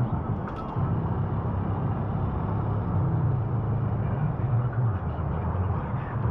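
Steady low rumble of road traffic on the highway bridge overhead. A few faint clicks come about half a second in.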